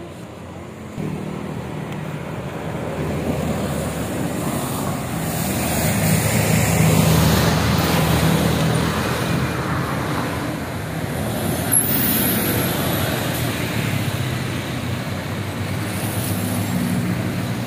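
Mercedes-Benz engine of a Budiman coach bus running hard as the bus comes round the bend and passes, building to its loudest about seven seconds in, over the noise of passing motorcycles and cars. A short sharp click about twelve seconds in.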